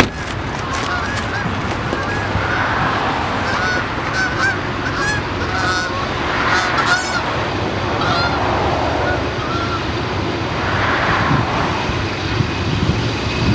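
Birds calling over and over in short honking calls, over a steady low rumble.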